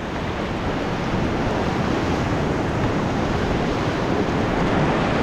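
River whitewater rushing steadily through a rapid, with wind buffeting the microphone.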